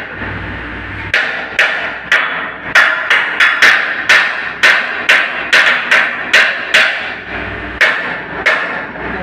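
A hammer striking repeatedly in an uneven rhythm, roughly two to three blows a second, each with a short ringing decay. There are brief pauses about a second in and near the end.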